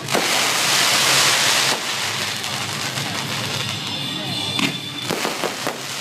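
Fireworks going off: a loud rush of hissing noise for about the first second and a half, then a few sharp bangs and cracks near the end.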